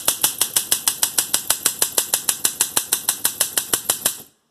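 Olympia Deluxe manual typewriter being typed on rapidly, its typebars striking the platen in an even run of sharp clacks, about eight a second, that stops suddenly near the end.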